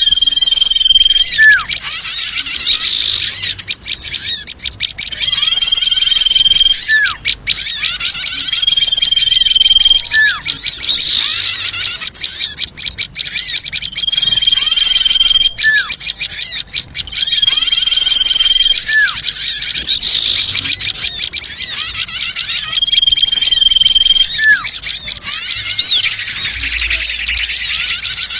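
Bird-lure recording for small birds: a dense, loud din of many small birds chirping and twittering together, with a long, steady high whistle repeating every few seconds.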